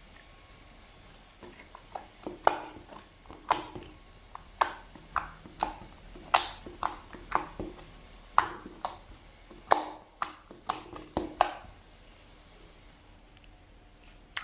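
Slime being worked by hand, giving a run of sharp popping clicks about two a second that stop about eleven and a half seconds in.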